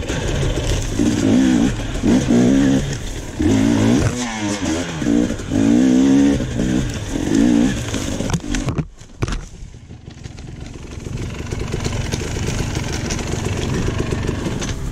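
KTM two-stroke dirt bike engine revving in repeated throttle bursts, pitch rising and falling, while riding rough ground. The sound drops out briefly just before nine seconds in, then an engine runs lower and steadier.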